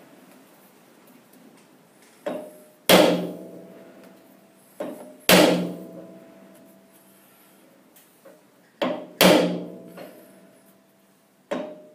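A hammer striking a workpiece held in a lathe chuck to tap it true on the centre, knocking the high spot over. About eight blows come a second or two apart, light taps mixed with three hard strikes, and each hard strike leaves a brief metallic ring.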